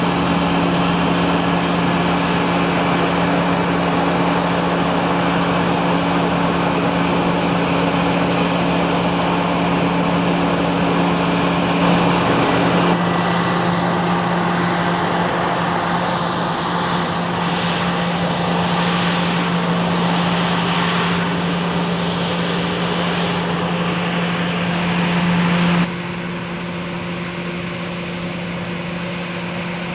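Grain-harvest machinery running with a steady engine hum. The sound changes abruptly twice, about thirteen seconds in and again near twenty-six seconds, getting somewhat quieter after the second change.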